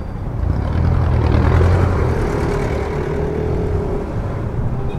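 Yamaha NMAX scooter riding, its engine and the wind and road noise of the ride growing louder about half a second in. A thin steady whine joins about two seconds in.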